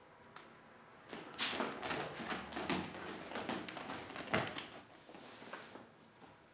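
Bare feet and bodies scuffing and thudding on a foam wrestling mat: a cluster of sharp knocks and scuffs from about one second in, the loudest a thump near the end of the cluster.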